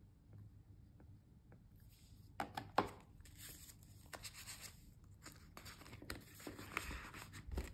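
Faint rustling of paper banknotes being handled, with a few sharp taps about two and a half seconds in.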